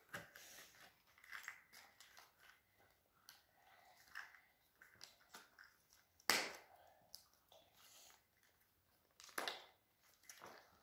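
Small plastic toy parts handled by hand: faint scattered clicks and crinkles, with two louder sharp snaps, one a little past the middle and one near the end.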